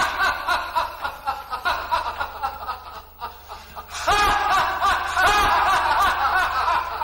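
High-pitched laughter, a rapid string of short ha-ha pulses, softer in the middle and louder again from about four seconds in.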